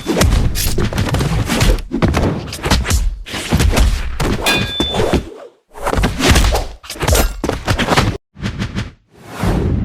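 Sound effects of heavy thuds and crashing impacts with some breaking and shattering, following one another rapidly. They stop briefly about five and a half seconds in and twice more near the end.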